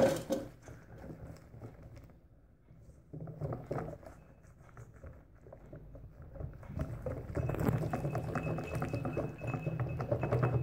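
Whisk beating thin semolina-and-flour batter in a stainless steel bowl: a fast wet patter and slosh with the wires ticking against the bowl, starting up about three seconds in and growing louder about seven seconds in. A sharp knock at the very start.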